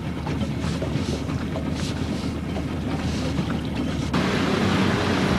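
A fishing boat's motor running steadily under way, with wind and water noise. About four seconds in, the sound suddenly gets louder.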